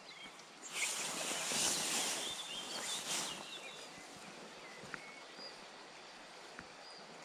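Close rustling of a fleece sleeve and hands handling a spinning rod and reel right at the microphone, lasting about three seconds from about a second in. After it comes a quieter outdoor background with short, high bird chirps.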